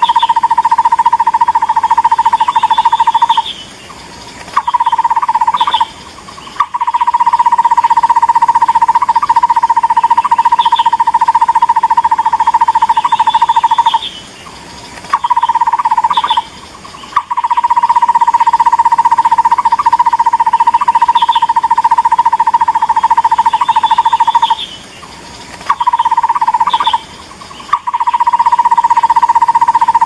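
Looped lure-call recording of a takur bukit barbet: a rapid, evenly pulsed call on one pitch, given in long runs of several seconds broken by short pauses. The same sequence repeats about every ten seconds.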